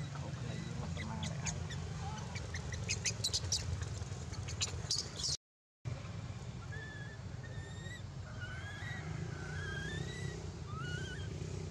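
Short high chirping calls that slide up and down, several in a row, over a steady low rumble. In the first half there are scattered sharp clicks and rustles, and about halfway through the sound drops out briefly.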